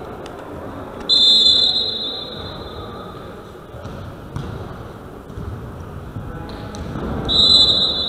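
Referee's whistle blown twice in a sports hall during a sitting volleyball rally. The first short blast comes about a second in, for the serve, and the second near the end, stopping play. Between the blasts there are a few sharp knocks of the volleyball being struck, over an echoing hall din.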